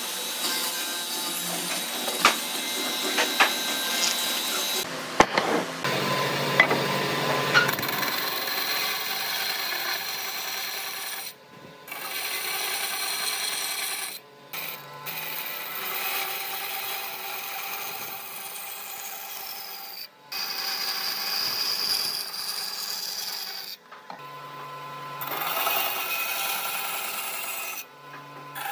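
A hollow-chisel mortiser plunging into hardwood, with sharp knocks as the chisel bites. Then a bandsaw runs and cuts through the end of a wooden rail in several stretches, each broken off abruptly.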